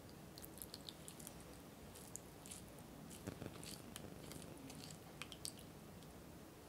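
Faint wet squishing with scattered small clicks as a silicone spatula presses steeped black tea leaves against a small metal mesh strainer, squeezing the last of the tea-infused cream through.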